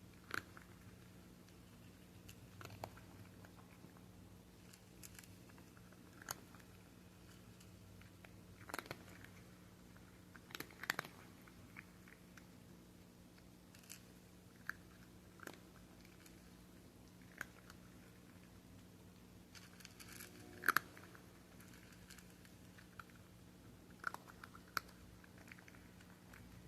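Cats crunching dry chicken kibble: sharp, irregular crunches every second or two, some in quick clusters, the loudest about three quarters of the way in, over a faint steady low hum.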